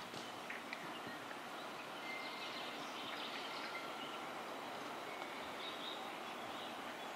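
Outdoor ambience: a steady hiss of background noise with scattered short bird chirps, and a few faint knocks in the first second.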